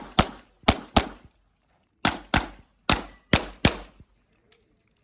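Handgun fired in a rapid string of about eight shots, with a short pause after the first three, as in a practical-shooting stage.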